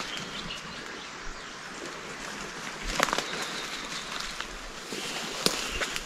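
Footsteps and brush rustling through forest undergrowth, with a couple of sharp snaps about three seconds in and near the end.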